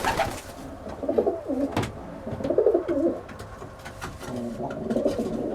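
Racing pigeons cooing in the loft, low pitched coos coming in several short phrases, with one sharp click about two seconds in.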